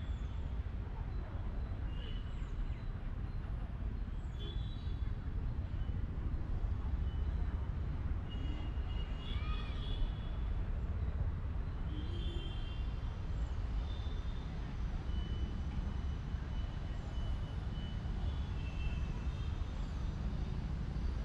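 Birds chirping in short, high calls on and off over a steady low rumble.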